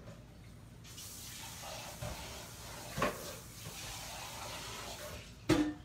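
Kitchen tap running for about four seconds, turned on about a second in and off near the end, as dishes are rinsed. A dish knocks about halfway through and clatters loudly near the end.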